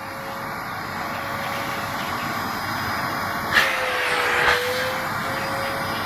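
IPC LP 1/12 dry vacuum cleaner running steadily, its motor whining under the rush of air as the hose nozzle sucks against a cloth filter. About three and a half seconds in there is a sudden louder gust of air, and the motor's pitch dips slightly soon after.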